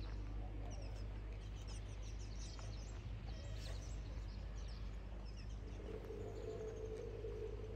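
Small birds chirping and twittering against steady low outdoor background noise. A steady mid-pitched hum joins about six seconds in.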